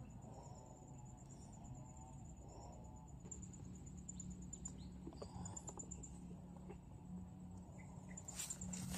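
A cricket-like insect trilling steadily at a high pitch in fast pulses, faint, with a brief rustle near the end.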